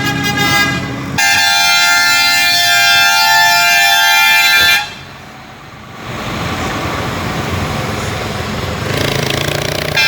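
Truck air horn blowing a loud, held chord of several tones for about three and a half seconds, then cutting off abruptly. After a brief lull, truck engine and road noise builds toward the end.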